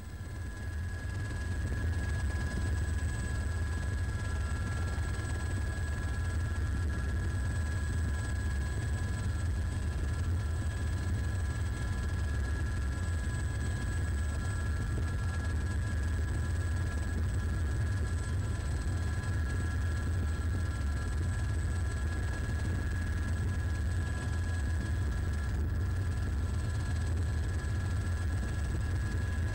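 Helicopter engine and rotor noise heard from on board: a steady low drone with a thin high whine over it, fading in over the first couple of seconds.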